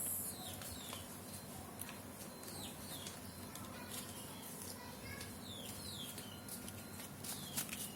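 Short chirps from birds, each falling in pitch, repeating every second or so over scattered faint clicks.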